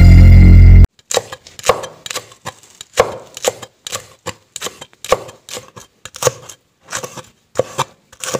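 A loud logo jingle cuts off just under a second in. Then a steel cleaver chops green chili peppers on a wooden chopping block, knocking unevenly about two to three times a second.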